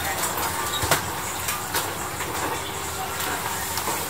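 Busy night-market background: steady hiss and distant chatter, with scattered short clicks and taps, the sharpest about a second in.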